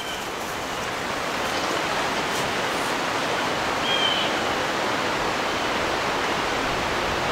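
A steady, even rushing hiss that swells over the first two seconds and then holds level, with two faint short high chirps, one at the start and one about four seconds in.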